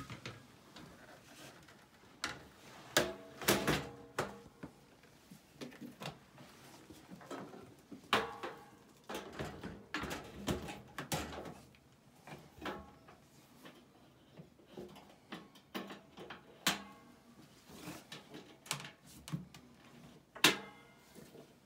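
Irregular knocks and clunks of plastic and metal vacuum parts being handled and fitted back together, a few ringing briefly.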